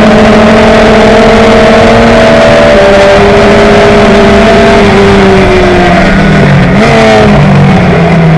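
Very loud onboard sound of a Tiga SC84 Sports 2000 racer's Ford 2.0-litre four-cylinder engine running hard, with a heavy rush of wind over the open cockpit. The engine note holds steady, sags gradually about five seconds in, gives a brief upward blip near seven seconds, then settles at a lower pitch.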